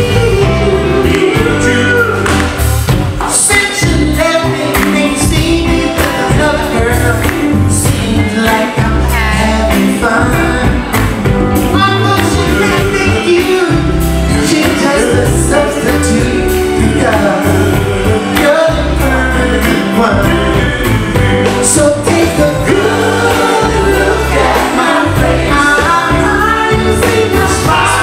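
Live soul vocal group singing with a backing band over the venue's PA: a lead voice with group harmonies over a strong bass line and a steady beat.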